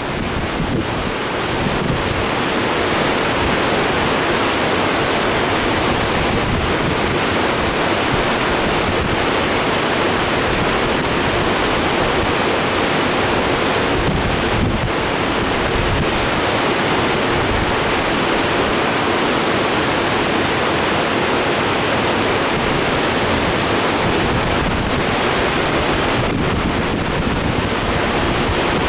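Loud, steady rush of water pouring over a low creek dam and running through turbulent rapids below it, the creek high and fast after rain.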